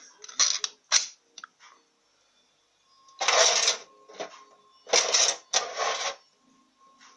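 A cast-iron stove firebox door latched shut with two sharp clicks. About three seconds later the metal ash drawer beneath it slides open, and near the end it is pushed back shut in two sliding strokes.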